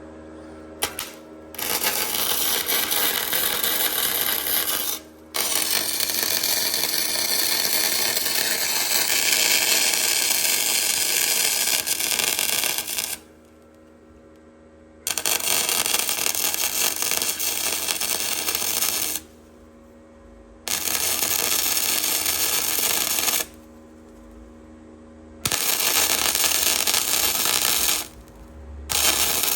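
Welder laying a series of beads on steel: a steady crackling sizzle in runs of about three to eight seconds, stopping and restarting about five times.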